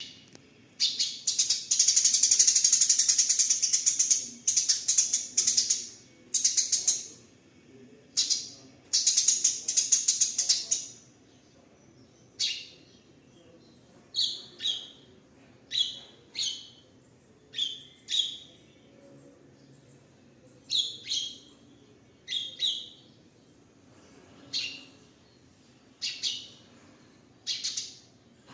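Eurasian tree sparrows' fighting chatter: long bursts of rapid, harsh chattering for the first ten seconds or so, then separate short chirps, often in pairs, about once a second.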